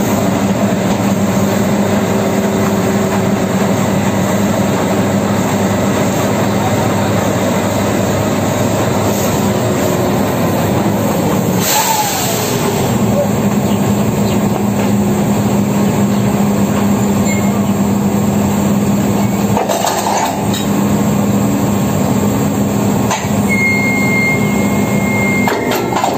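Oil drilling rig machinery running steadily during a pipe pull-out: a loud mechanical drone with a steady low hum, broken by a few sharp metal clanks from the pipe handling, the clearest about twelve seconds in.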